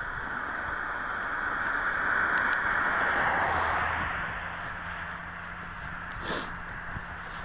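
A car passing on the highway, its rushing noise swelling to a peak about three seconds in and then fading away.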